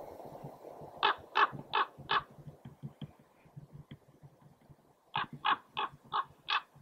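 Common raven calling in flight with short, harsh 'cra' calls: a run of four about a second in, then another run of five near the end, about three calls a second.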